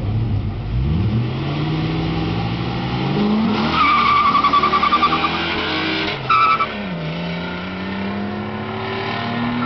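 Cars, among them a white BMW E34 5 Series, launching hard from a standing start. The engines rev up, and about four seconds in the tyres squeal in a pulsing chirp. A short second chirp comes at a gear change, after which the engine note climbs steadily as they pull away.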